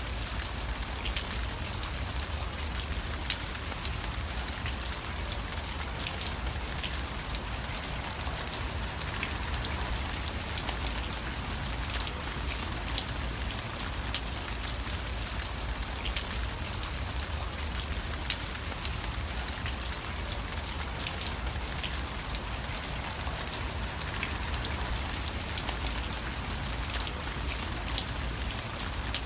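Steady rain falling, with individual drops ticking sharply here and there over a low, even rumble.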